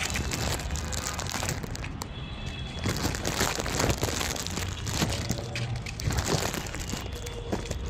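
Puppies eating, with dense, irregular crunching and crinkling noises and a low background rumble.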